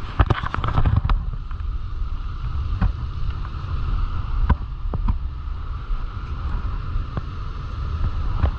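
Strong wind buffeting the microphone, with a few sharp clicks and knocks scattered through it.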